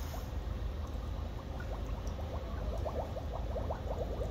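Water sloshing and gurgling in a salt-water electrolysis chlorinator tank as a hand swishes through it, with quick bubbly pops that grow busier from about a second and a half in. The electrodes are running, splitting the salt water to make chlorine. A steady low hum runs underneath.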